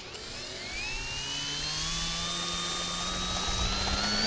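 Quadcopter motors with 15-inch wooden props spinning up while the craft sits on the ground: a whine of several tones that rises slowly in pitch and grows steadily louder.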